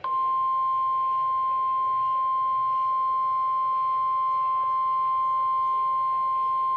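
NOAA Weather Radio warning alarm tone, a single steady 1050 Hz tone from a Midland weather alert radio's speaker. It starts sharply and holds unbroken, signalling that a warning broadcast, here a flood warning, is about to follow.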